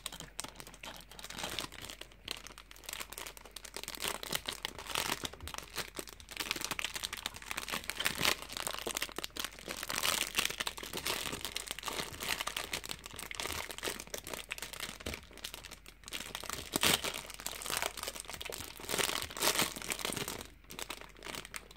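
Clear plastic film wrapper crinkling and crackling in uneven bursts as it is pulled and peeled off a block of soft clay.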